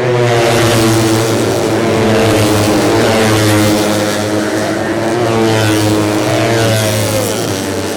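Several 150cc four-stroke underbone race motorcycles running hard at high revs. Near the end a pitch drops away as one passes.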